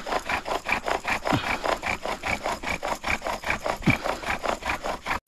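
Bow drill: the wooden spindle spun by a back-and-forth bow, grinding in the socket of a wooden fireboard with a rhythmic rasp of wood on wood, about five strokes a second, with two short falling squeaks. It cuts off suddenly near the end.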